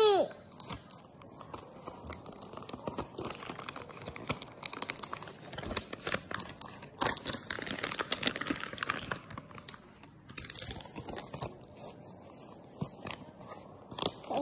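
A baby crinkling and rustling a plastic packet with her hands, on and off throughout, with irregular crackles. It opens with the baby's brief high vocal sound that falls in pitch, the loudest moment.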